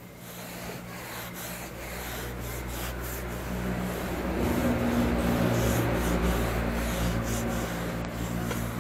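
Cloth rag scrubbing back and forth along a long curved steel knife blade, the rubbing growing louder after a few seconds, over a steady low hum.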